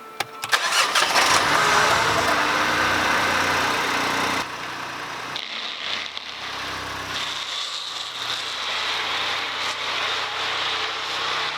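A car engine starting after a few clicks and then running steadily. About four and a half seconds in, it drops suddenly to a quieter running sound.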